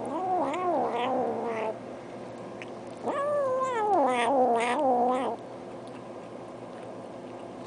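Domestic cat yowling twice, in long drawn-out calls that waver up and down in pitch. The first lasts under two seconds and the second, about three seconds in, is longer.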